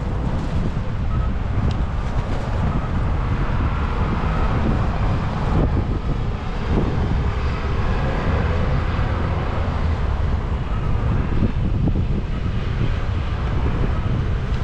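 Wind rumbling on the microphone, a steady low noise, with a general hum of vehicle traffic underneath.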